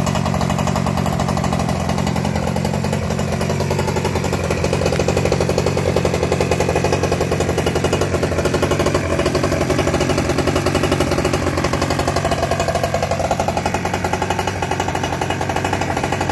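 OBR 47cc 'Fat Boy' reed-valve two-stroke engine on a GoPed GoQuad kart idling steadily, a rapid, even putter of firing pulses.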